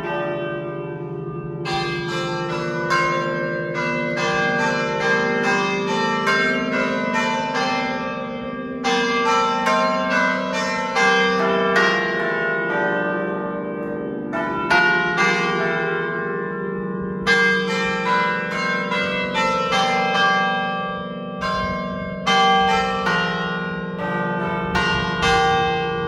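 Several church bells of different pitches in the Basilica da Estrela's tower ringing in quick runs of strokes. Their tones ring on and overlap, with short lulls every few seconds.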